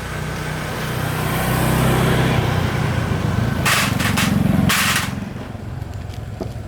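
A small engine running and building up, with two short hissing bursts near the middle.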